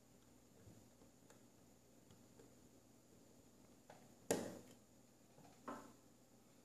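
Mostly near silence with faint ticks of hand work on a BlackBerry Curve 9300's plastic casing and a precision screwdriver. There is a sharp click about four seconds in and a softer one over a second later.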